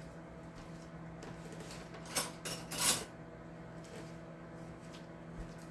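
Kitchen clatter of dishes and utensils while a cup of coffee is made: two short clatters a little after two seconds in and again near three seconds, over a low steady hum.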